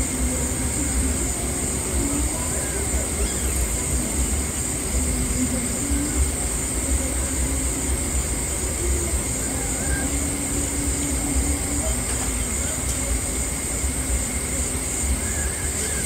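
Night-time outdoor ambience: a steady high-pitched drone of insects over a constant low rumble.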